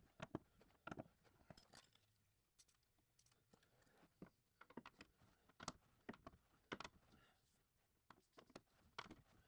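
Near silence in a small room, broken by faint, irregularly spaced taps and clicks.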